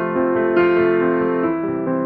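Keyboard music playing slow, sustained chords, with a new chord struck about half a second in.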